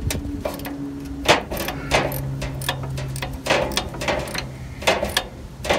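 Irregular metallic clicks and knocks of a wrench and pliers on a rusted rear shock-absorber nut as it is worked loose, with a faint steady hum under part of it.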